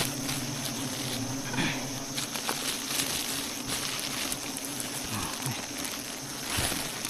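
Steady buzzing of honey bees around the comb, with a hiss over it and scattered crackling and rustling clicks.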